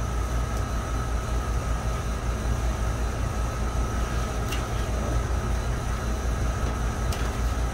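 Steady mechanical drone: a constant low hum under an even hiss, with a thin steady whine above it and a couple of faint clicks.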